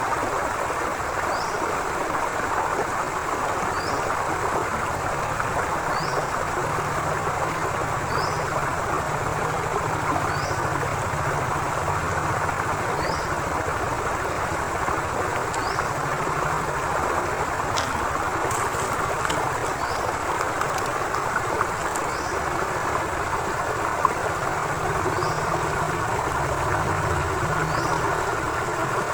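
River water flowing steadily, with a low rumble under the rushing. A short high chirp repeats about every second and a half.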